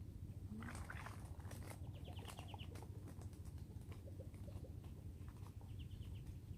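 Faint outdoor ambience: a steady low rumble with scattered light ticks and two short, rapid chirping trills, about two seconds in and again near the end.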